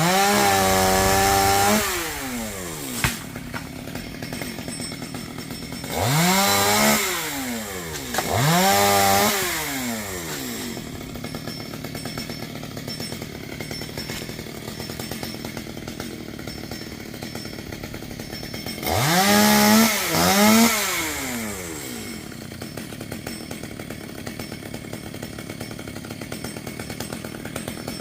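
Two-stroke chainsaw idling, revved up in four short bursts of about two seconds each, at the start, around six and nine seconds in, and near twenty seconds, with the engine pitch falling back to idle after each. A single sharp knock sounds about three seconds in.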